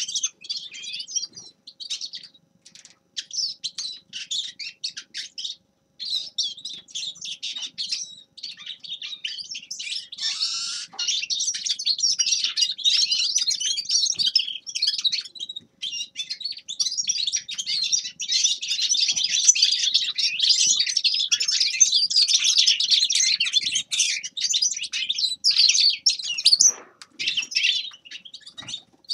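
Grey-headed goldfinch singing a long, fast twittering song in phrases separated by short pauses.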